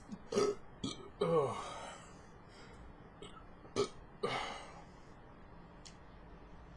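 A person burping several times in a row, short separate belches with the longest one about a second in.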